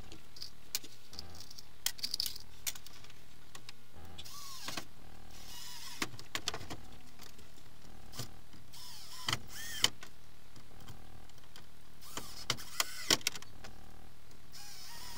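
Cordless drill-driver run in several short bursts, its motor whining up and down as it drives screws through a steel piano hinge into the wooden bed top.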